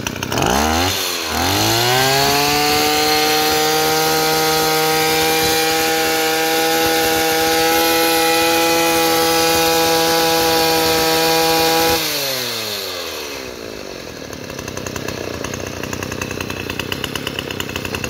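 Mitsubishi T200 two-stroke engine on a gas-powered earth auger, revved up from idle with a quick blip, then held at full throttle at a steady high pitch for about ten seconds. Near the end of that it is let off and falls back to an uneven idle.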